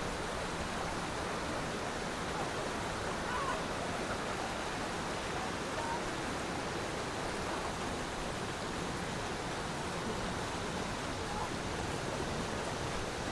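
Steady rush of a mountain waterfall: an even hiss of falling water that does not change.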